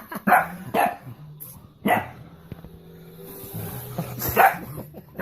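Dog barking in a few short, separate barks, reacting protectively to a person pretending to hurt a child.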